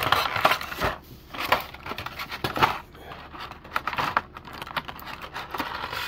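Clear plastic clamshell tray crinkling and crackling, with sharp clicks, as it is flexed open and an action figure is pulled out of it.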